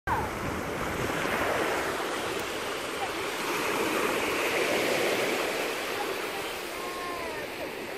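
Sea waves washing on the shore, a steady rushing, with faint voices calling briefly in the background.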